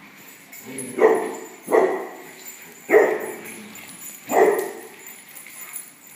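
A dog barking four times, the barks roughly a second apart, among dogs playing together.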